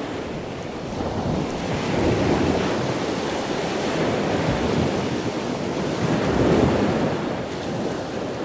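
Sea waves washing in slow swells, with wind buffeting the microphone.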